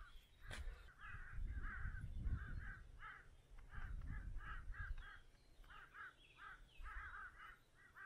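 Crows cawing over and over, a long run of short calls one after another, with a low rumble underneath.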